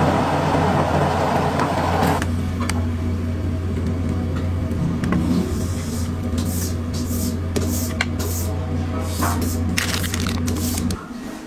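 Wet squishing and splatting of thick meat chili sauce being spooned onto french fries, a quick run of short wet squirts in the second half. A steady low hum runs underneath and stops just before the end.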